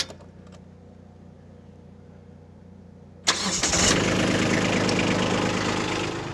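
Kubota B2601 compact tractor's diesel engine cranking over and catching about three seconds in, then running steadily. A short click comes right at the start.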